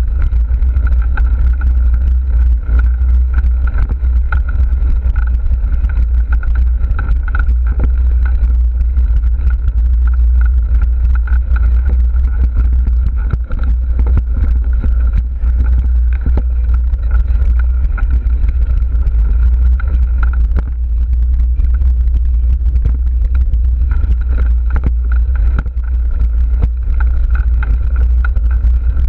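Ride noise from a camera on a mountain bike rolling along a dirt singletrack: heavy wind buffeting and low rumble on the microphone, with frequent small rattles and knocks from the trail. A steady high whine runs over it and drops out for a few seconds about two-thirds of the way through.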